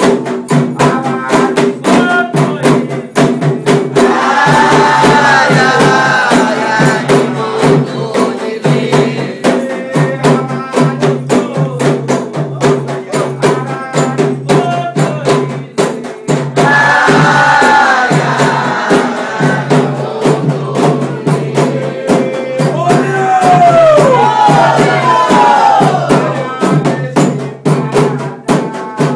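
Candomblé sacred music: voices singing a chant in phrases over fast, continuous hand-drum and rattle percussion.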